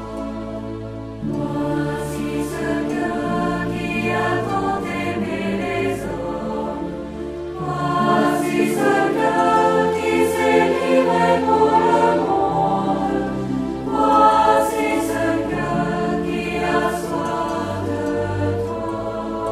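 Background music: a choir singing a slow song over instrumental accompaniment, the notes held long over a bass that steps from note to note.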